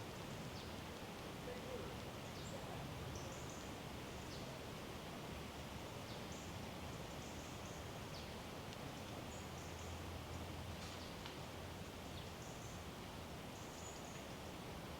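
Quiet woodland ambience: a steady background hush with faint, short, high-pitched bird calls scattered throughout.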